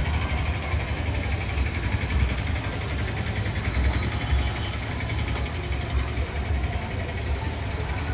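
Steady street traffic noise: a low, fluctuating rumble of vehicles and motorbikes moving slowly past.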